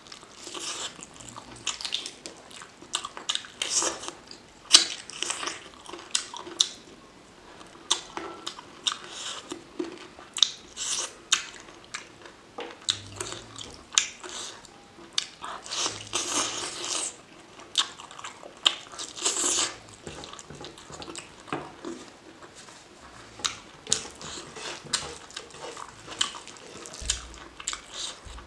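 Close-miked eating of chicken curry with rice: wet chewing and lip smacking, with many short sharp clicks coming irregularly throughout.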